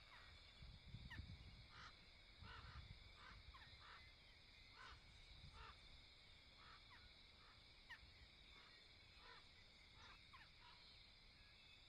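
Faint outdoor night-time wildlife ambience: a steady high insect trill, with short chirps repeating about every half second and a brief low rumble about a second in.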